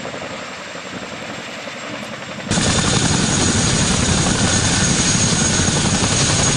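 CH-47 Chinook tandem-rotor helicopter running on the ground, rotors turning and twin turboshaft engines running. About two and a half seconds in the sound jumps abruptly much louder and closer, with a steady high whine.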